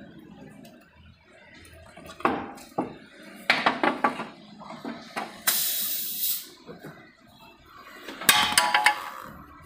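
Metal hand tools and loose engine parts clanking and clattering in several bursts, some ringing briefly. A hissing scrape runs for about a second just past halfway.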